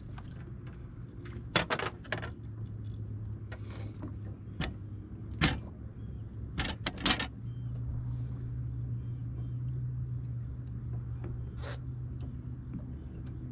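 Clinking and knocking of gear handled aboard a bass boat, several sharp clicks in small clusters over the first seven seconds, over a steady low hum that grows a little stronger after that.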